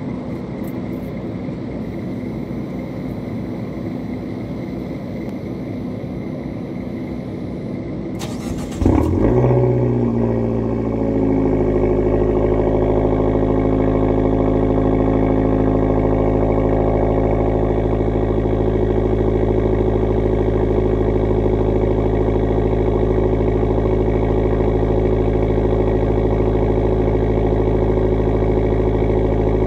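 2013 Fiat 500 Abarth's turbocharged 1.4-litre four-cylinder cold-started through its exhaust. About eight seconds in, a brief crank is followed by the engine catching with a loud flare of revs. It then settles into a steady idle.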